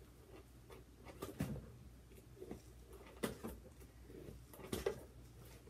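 Faint handling of a cardboard package: scattered small taps, scrapes and clicks as it is worked at to get it open, with three sharper clicks about a second, three seconds and five seconds in.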